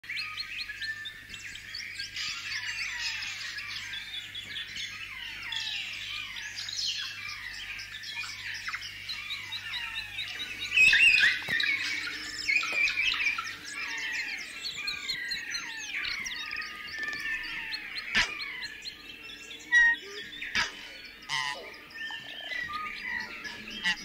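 A dense chorus of many birds chirping and calling, with many quick falling notes overlapping. There are a few sharp clicks in the second half.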